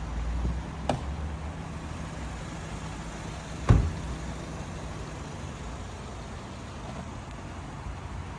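Heavy-duty electric wheelchair with 500 W worm-gear drive motors running, a steady low hum. A light click about a second in and a loud sharp knock about three and a half seconds in.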